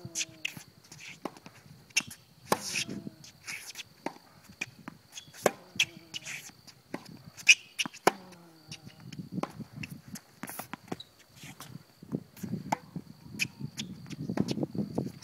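Tennis rally on a hard court: sharp pops of racket strikes and ball bounces, back and forth at irregular intervals, with shoes scuffing the court. A faint steady high whine runs underneath.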